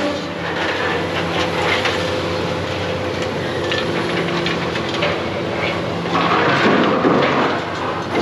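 Heavy demolition machinery working. An engine runs steadily under scattered clanks and knocks of debris, with a louder stretch of crunching and scraping about six seconds in.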